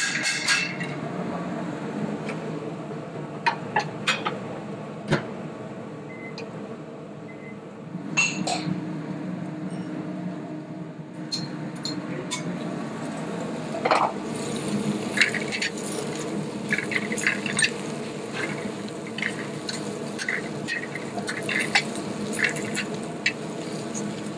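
Metal tongs clinking and scraping in an aluminium sauté pan as spinach is tossed over a gas burner. The clinks come in scattered strokes and grow busier in the second half, over a steady kitchen hum.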